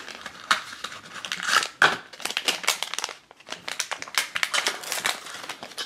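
Small cardboard blind box being opened by hand and the packaging inside crinkled, in many short, irregular crackles.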